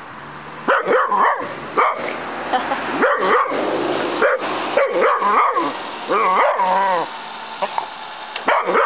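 Small pitbull–dachshund mix dog barking excitedly in short, repeated barks, with a longer wavering, whining bark about six seconds in.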